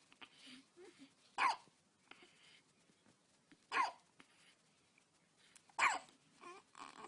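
A ten-day-old newborn baby hiccuping: three sharp hiccups about two seconds apart, each with a quick falling pitch, then two fainter sounds near the end.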